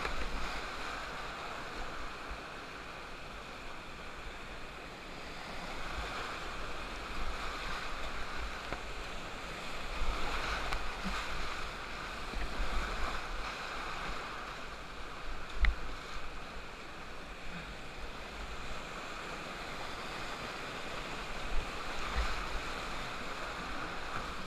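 Whitewater rapids rushing steadily around a kayak, heard from just above the water, with one sharp knock about two-thirds of the way through.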